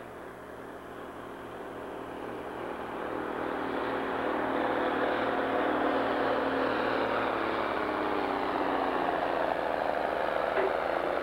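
Farm stock pulling tractor's diesel engine running hard under full load as it drags a weight-transfer sled down the track. It grows louder over the first few seconds as the tractor comes closer, then holds steady.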